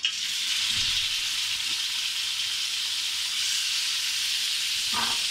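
Chopped bitter gourd sizzling steadily in a little hot ghee in a small frying pan. The sizzle starts suddenly as the pieces go into the fat.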